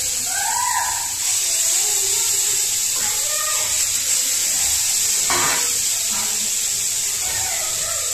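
Marinated catla fish steaks sizzling in hot oil in a frying pan, a steady hiss as more pieces are laid in. A short knock about five seconds in.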